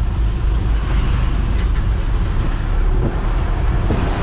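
A vehicle driving along a road, heard from inside the cabin: a steady low rumble of engine and road noise.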